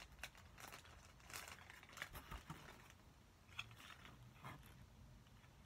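Faint rustling and scattered light clicks of items being handled in a cardboard box.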